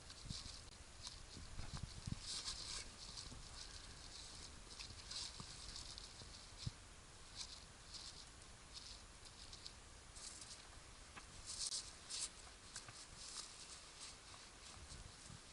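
Irregular light crackling and rustling patter in short bursts, over a low rumble.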